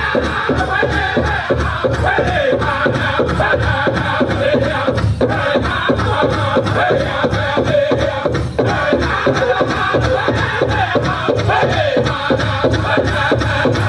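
Powwow drum group singing a Prairie Chicken Dance song in high voices over a fast, even beat on a shared big drum.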